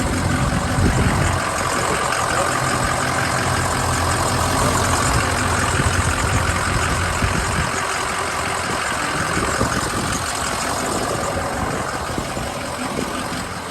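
Van engine idling steadily.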